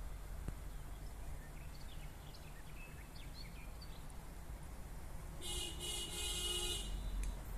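Distant electric locomotive, an EP2K, sounding its horn once for about a second and a half near the end, over a low rumble as the train approaches. Birds chirp faintly earlier on.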